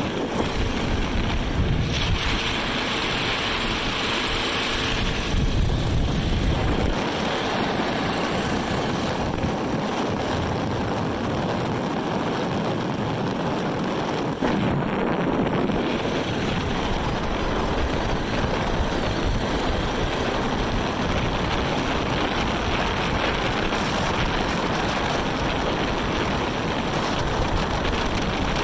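Jet boat with a 4.8 L LS V8 and a Berkeley jet drive running under way: a steady, dense rush of engine, water and wind noise.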